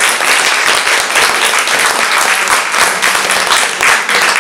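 Audience applauding: dense, continuous clapping from a roomful of people.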